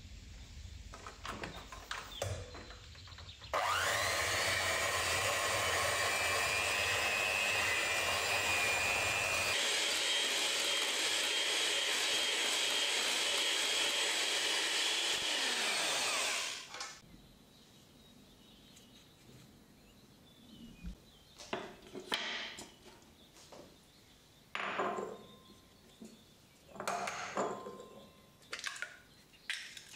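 Russell Hobbs electric hand mixer beating cream cheese and sugar in a glass bowl. It starts a few seconds in, runs steadily with a whine for about thirteen seconds, its pitch changing once partway through, then stops. A few light clicks and knocks follow.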